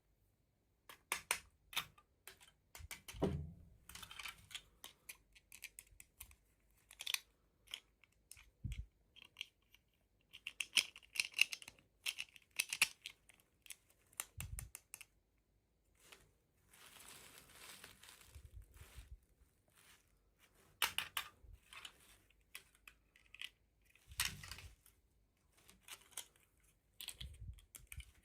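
Toy packaging being opened by hand: irregular crinkling, tearing and sharp small clicks of plastic and cardboard.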